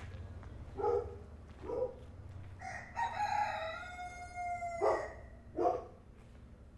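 A rooster crowing: one long drawn-out cock-a-doodle-doo in the middle, with short calls twice before it and twice after it. A steady low rumble runs underneath.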